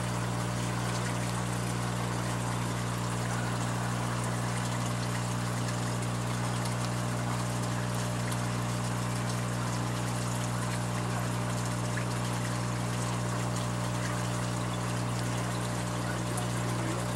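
Aquarium wet/dry filter running: water trickling steadily over a constant low hum.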